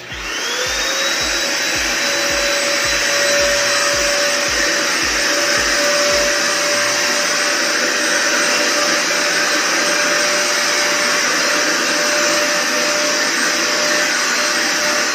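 JK-8 1000 W vacuum cleaner switched on, its motor whine rising to speed within half a second and then running steadily.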